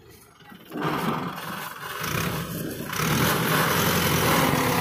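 Mahindra tractor's diesel engine running, getting louder in steps about one, two and three seconds in as it revs to pull the loaded trolley.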